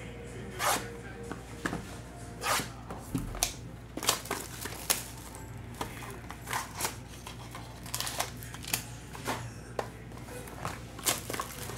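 Plastic shrink-wrap being torn and peeled off a sealed trading-card hobby box, crinkling in sharp irregular crackles as hands work the wrap and the cardboard box.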